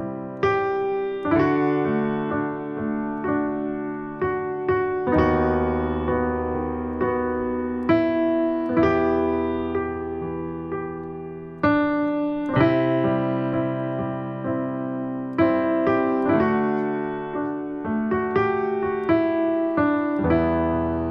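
Sampled acoustic piano (a Nord piano library in Kontakt) played from a keyboard: slow, sustained chords of a worship song in E major. Each chord is struck and left to ring and fade, with a new chord every one to four seconds.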